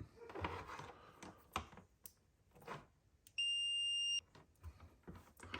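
A multimeter's continuity beeper gives one steady, high beep a little under a second long, about halfway through, as its probes bridge the new 440 mA fuse: the beep shows the fuse conducts and is good. Light clicks and taps of the probes and fuse being handled come before and after it.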